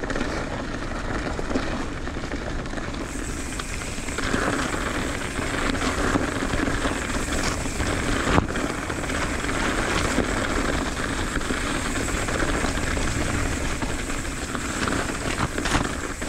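Mountain bike rolling fast down a dirt and wood-chip trail: steady tyre and trail noise mixed with wind rushing over the camera microphone. There is a single sharp knock about eight seconds in.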